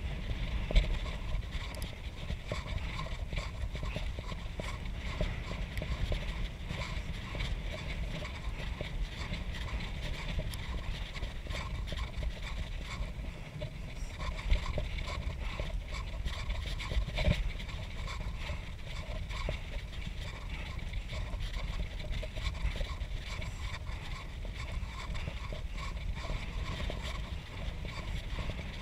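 Bicycle riding along a road at night: wind rushing over the handlebar-mounted microphone and the rumble of the tyres, with a steady rattle of the bike and a few sharper knocks from bumps.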